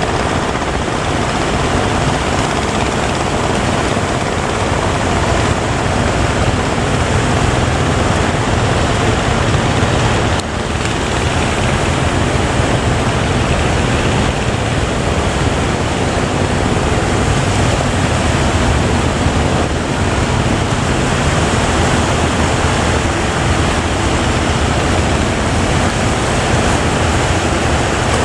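Big ocean waves and surf breaking, a steady loud rush with a strong low rumble that dips briefly about ten seconds in.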